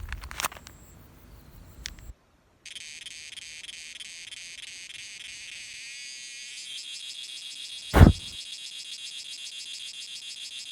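Insects buzzing in a steady, shrill chorus with a fast pulsing, starting after a brief dead-silent break about two seconds in. About eight seconds in, a short, loud thump with a falling pitch cuts through.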